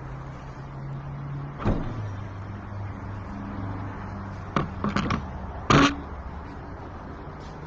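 A handful of short, sharp knocks and clicks over a steady low hum: one about two seconds in, a quick cluster around five seconds in, and the loudest just before six seconds.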